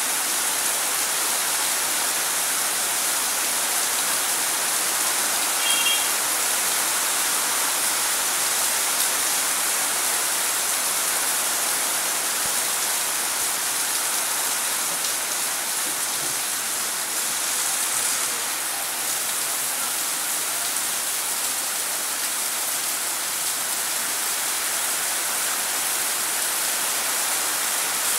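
Steady rain falling and splashing on hard paved ground, an even continuous hiss.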